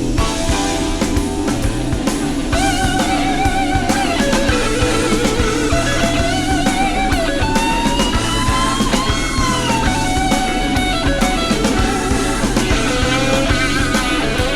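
Instrumental rock music: a lead guitar playing bending, gliding lines over drums and bass.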